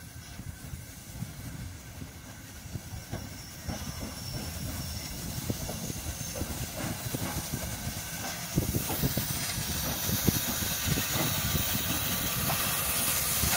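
Soviet L-class steam locomotive hissing loudly as steam vents around its cylinders, with a low rumble underneath. The hiss builds gradually and is strongest in the last few seconds.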